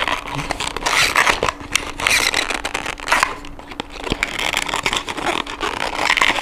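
The cardboard box and clear plastic case of a 1:64 MINI GT diecast model car being handled and opened by hand: an irregular run of crinkly rustles, scrapes and small clicks.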